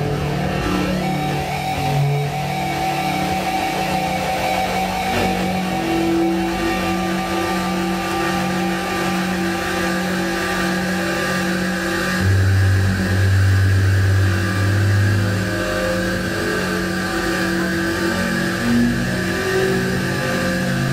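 Live electronic drone music: several sustained tones from electronic instruments layered and held steady, with a deep low tone coming in about twelve seconds in and holding for about three seconds.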